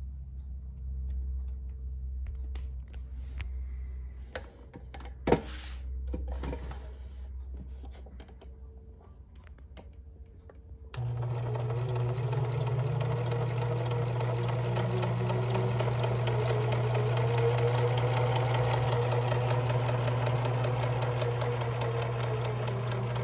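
Kenmore model 1785 sewing machine: a low hum with scattered handling clicks and one sharp click about five seconds in. About eleven seconds in the motor starts and runs steadily, its needle mechanism ticking rapidly and evenly.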